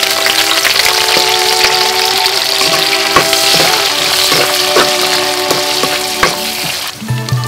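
Sliced red onion, green chillies and spices sizzling as they fry in a clay pot, stirred with a spoon that clicks and scrapes against the pot. The sizzle cuts off suddenly near the end, and soft background music with held notes runs underneath.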